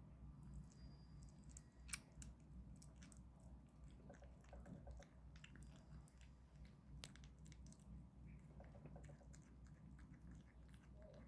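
A kitten chewing homemade food: faint, irregular small chewing clicks, with a sharper click about two seconds in and another about seven seconds in.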